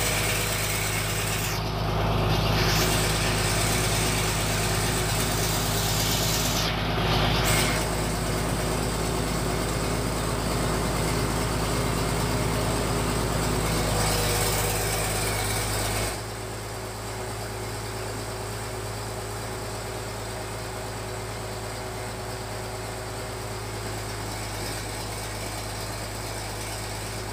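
Fish-feed pellet machine running with its drive engine humming steadily as it presses a wheat bran and salted fish mix out through the die, the drive working fairly light with this mix. Two brief rushes of noise come in the first few seconds, and the whole sound drops somewhat about two-thirds of the way through, the machine still running.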